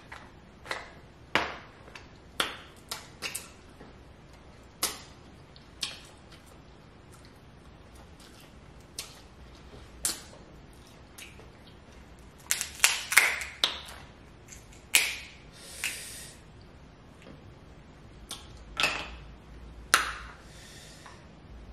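Snow crab leg shells cracking and snapping as they are broken apart by hand: irregular sharp cracks, with a quick flurry of them a little past the middle.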